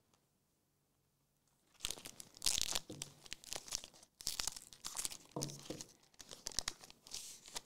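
A Magic: The Gathering Lord of the Rings collector booster pack being torn open by hand, its foil wrapper ripping and crinkling irregularly, starting about two seconds in.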